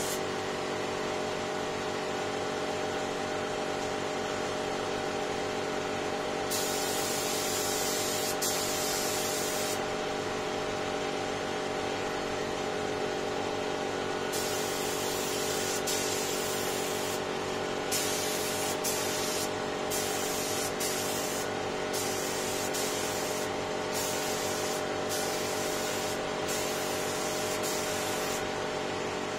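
Gravity-feed air spray gun hissing as its trigger is pulled while spraying finish onto wooden tabletops. There is one long hiss of about three seconds around seven seconds in, then from about halfway a run of short on-off bursts. A steady motor hum runs underneath.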